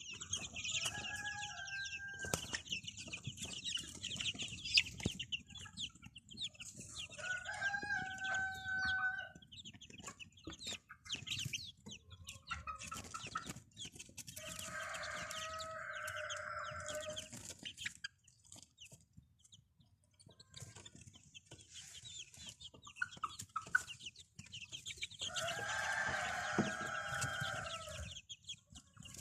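Chickens: a rooster crows twice, each crow about three seconds long, amid hens clucking and a steady high peeping of chicks.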